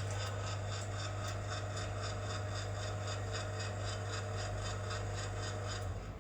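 Motor drive of a wire crimp pull tester running during a pull test: a steady low hum with a fast, even pulsing ticking above it. Both cut off together near the end as the machine stops.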